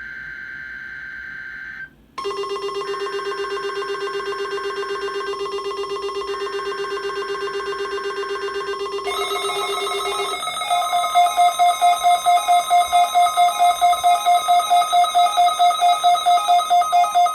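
A buzzy emergency-alert data tone for about two seconds, then electronic alert alarms beeping rapidly and steadily. About nine seconds in, a second, louder and faster-pulsing alarm joins and takes over.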